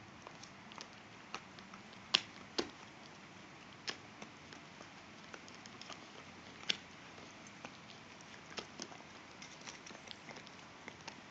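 Two small dogs gnawing on elk antler chews: irregular sharp clicks and cracks of teeth on antler, the loudest about two seconds in.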